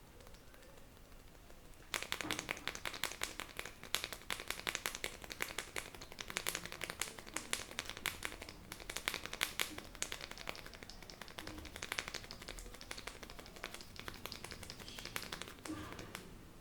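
Rapid, rhythmic tapping of a barber's hands on a customer's head during an Indian head massage, many quick light strikes a second. It starts about two seconds in and stops near the end.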